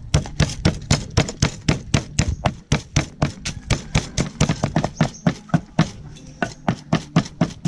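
Wooden pestle pounding garlic and red chillies in a large mortar: a fast, even run of knocks, about five strokes a second.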